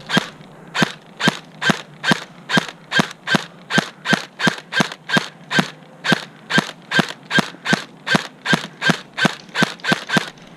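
Airsoft gun firing single shots in a steady, even stream of about two to three sharp cracks a second, some two dozen in all.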